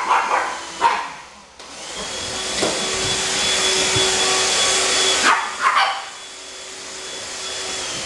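Handheld vacuum cleaner motor starting up suddenly about a second and a half in and running with a steady whine while held against a pug's coat. A pug puppy barks twice at the start and twice more about five seconds in.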